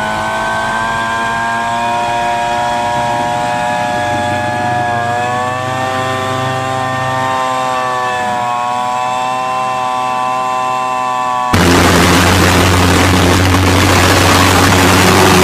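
Electric leaf blower whining steadily as it blows air into a homemade motorized bicycle's engine to start it. About eleven and a half seconds in, the engine fires, much louder, with a rough, noisy running sound and a strong low drone, and keeps running.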